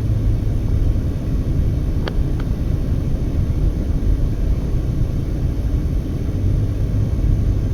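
Car driving at road speed: a steady low rumble of engine and tyre noise, with two faint ticks about two seconds in.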